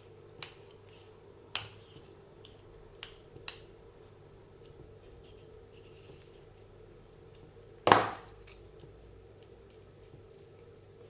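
Small parts and hand tools being handled during disassembly of a WLToys 144001 RC car: a few sharp clicks in the first few seconds, then one louder knock about eight seconds in, over a low steady hum.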